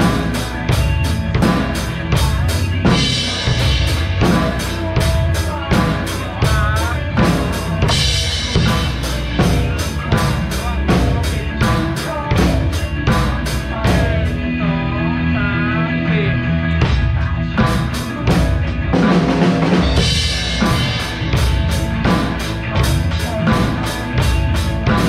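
Drum kit played with sticks in a steady groove over a recorded pop song. The cymbals drop out briefly about halfway through, then the full beat comes back.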